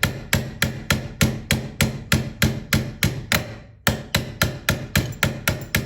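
Nylon-tipped hammer tapping a punch in quick, even strokes, about three or four a second, driving the bolt catch roll pin into an AR-15 lower receiver. The tapping pauses briefly a little past halfway, then resumes.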